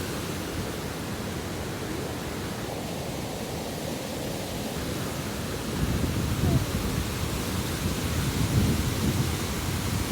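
Water rushing over a reservoir spillway: a steady, even rush of noise, with deeper rumbling surges from about six seconds in.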